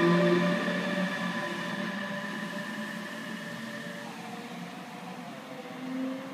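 Bombardier TRAXX class 146 electric locomotive pushing a metronom train away: its electric whine, several steady tones, fades with the rolling noise as the train recedes. A faint new tone rises near the end.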